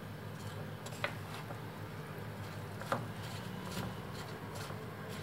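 Hands mixing cooked rice and chopped vegetables in a ceramic bowl: soft rubbing and squishing, with two sharp knocks, one about a second in and one near the three-second mark, over a low steady hum.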